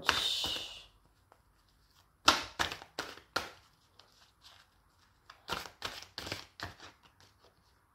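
Tarot deck being shuffled by hand: two spells of quick papery card slaps and riffles, one about two seconds in and a longer one from about five to seven and a half seconds in.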